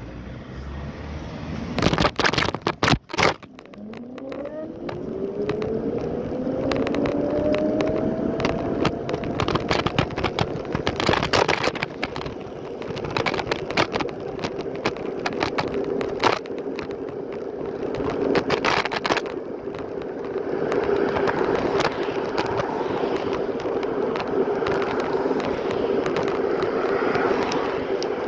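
Lime electric kick scooter's motor whining up in pitch as it accelerates, then holding a steady whine at cruising speed, over rattling, wind and tyre noise. A few loud knocks come about two to three seconds in.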